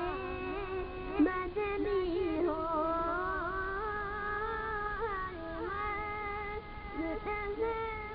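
A boy singing long, gliding melodic lines into a microphone, with harmonium accompaniment.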